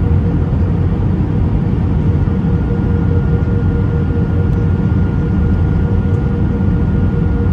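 Airbus A319 cabin noise heard from a window seat over the wing on descent: a steady low rumble of engines and airflow with a constant hum above it.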